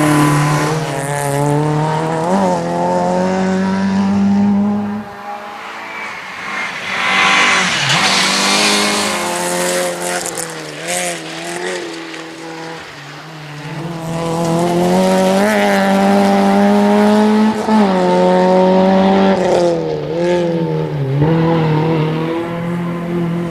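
Opel Corsa GSI rally car's engine at high revs, its pitch climbing and dropping repeatedly through gear changes. It eases off for several seconds in the middle, with a burst of tyre noise about seven seconds in, then pulls hard again.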